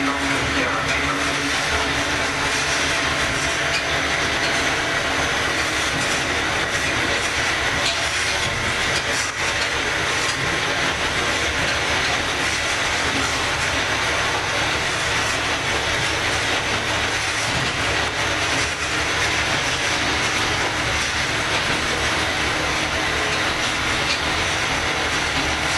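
Kominato Railway KiHa 200 diesel railcar running along the line: the steady drone of its DMH17C diesel engine and TC-2 transmission mixed with the rumble and clatter of the wheels on the rails.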